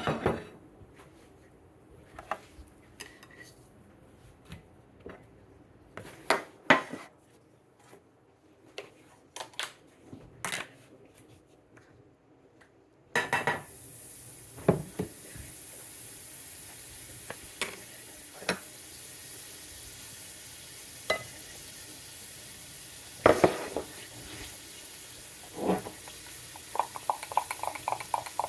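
Kitchen utensils clinking and knocking against a pan and dishes while pancakes are cooked. About 13 s in, a steady frying sizzle starts and carries on under occasional knocks. Near the end there is a quick run of even taps.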